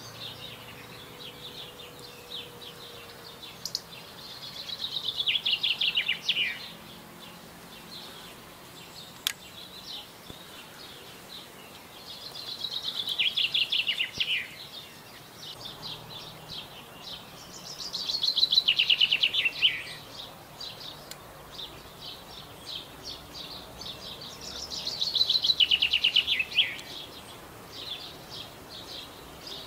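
A songbird repeating the same song phrase four times, about every six to seven seconds: each phrase is a rapid trill of notes falling in pitch over about two seconds. Faint, short, high ticks come in between.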